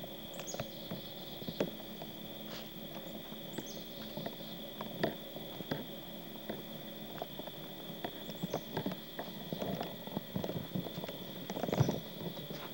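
Scattered irregular knocks and clicks, more frequent near the end, over a steady high-pitched tone.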